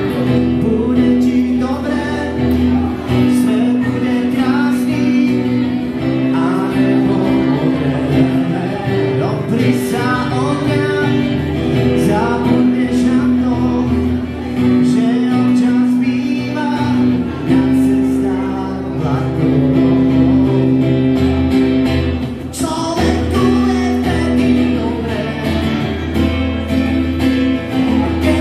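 A man singing a song while strumming an amplified acoustic guitar, heard through PA speakers.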